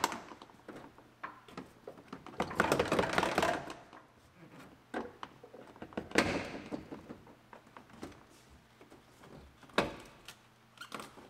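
Plastic C-pillar trim panel being pried and wiggled loose by hand: irregular clicks and knocks of plastic and retaining clips, with rustling of the panel, and a sharper knock near the end.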